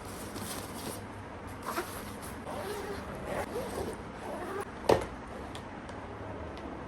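Steady background hum with faint, indistinct voices, and a single sharp click about five seconds in.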